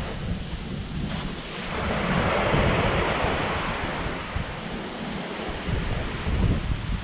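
Sea surf washing on a beach, one wave swelling up about two seconds in and fading away, with wind rumbling on the microphone.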